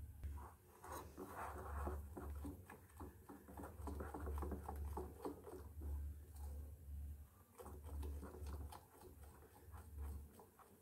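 Steel spoon stirring thick semolina pua batter in a bowl: faint, irregular wet scrapes and light clicks of the spoon against the bowl, over a low hum.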